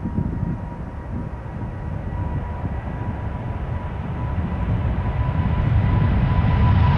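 Boeing 777F's two GE90 turbofan engines at takeoff thrust through the end of the takeoff roll and lift-off: a deep rumble that grows steadily louder, with a thin steady whine held over it.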